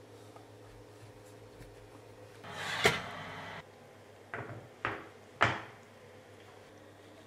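Kitchen handling noises: a brief rustle that ends in a sharp click, then three short clacks about half a second apart, the last the loudest.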